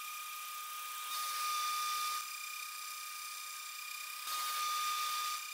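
Small CNC mill's spindle running with a steady high whine, with two bursts of cutting noise, each about a second long, as the end mill passes through aluminium, about a second in and again about four seconds in.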